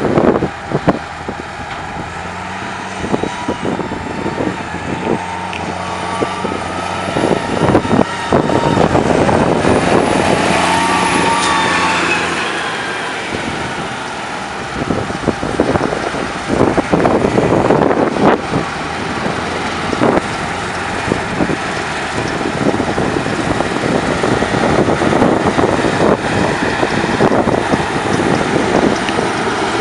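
A Claas Lexion combine harvester and a tractor running: a steady engine drone, with a high whine that rises and falls in the first half, and wind buffeting the microphone.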